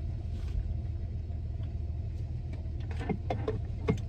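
Steady low rumble of a car idling, heard from inside the cabin. Near the end, a few short throaty vocal sounds come after a swig of soda.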